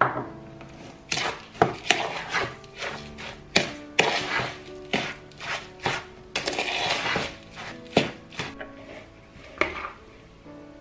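Metal fork stirring a thick, damp grated-carrot mixture in a plastic bowl: irregular knocks and scrapes against the bowl, one or two a second with a longer scraping stretch in the middle, over soft background music.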